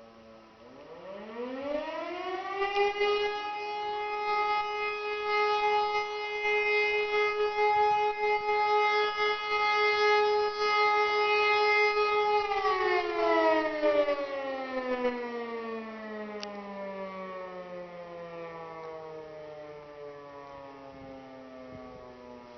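E57 electric motor siren sounding one blast of the fire alarm signal. It winds up quickly in rising pitch, holds a steady wavering tone for about ten seconds, then winds down slowly in falling pitch as the rotor coasts to a stop.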